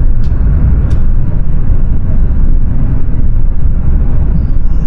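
Cabin noise of the Whoosh high-speed train running at about 288 km/h inside a tunnel: a loud, steady low rumble, with two faint ticks in the first second.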